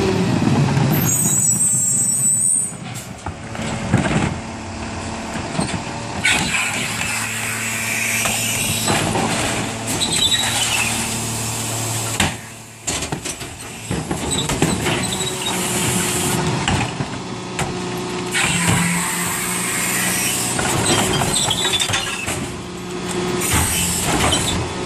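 Loadmaster rear-loader garbage truck running steadily while its hydraulic cart tippers lift wheeled plastic carts and dump them into the hopper, with knocks and clatter of the carts. A brief high squeal about a second in, typical of the truck's brakes as it stops.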